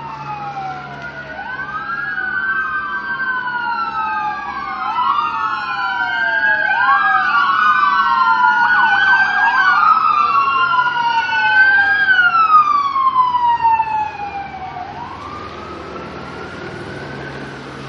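Several police car sirens wailing at once, their rising and falling sweeps overlapping. They grow louder as the cars pass, are loudest about two-thirds of the way through, then fade near the end.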